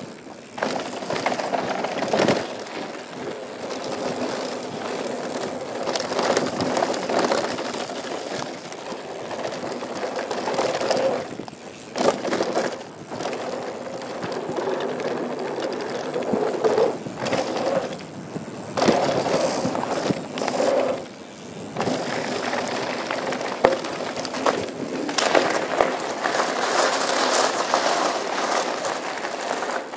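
Mountain bike rolling down a dirt trail: tyre and gravel noise with rattles and clicks, dropping away briefly several times.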